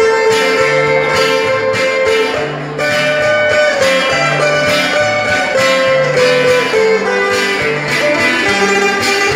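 Two acoustic guitars playing live through a stage PA: steady strummed chords with a bass-note pattern, under a melody of held notes that steps up and down in pitch.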